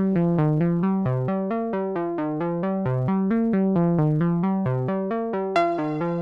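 Analog modular synthesizer (Synthesizers.com Q-series) playing a sequenced pattern of short pitched notes, about five a second, over a lower bass note. Near the end a brighter, louder note cuts in, typical of the second voice being triggered at random by noise through a sample and hold.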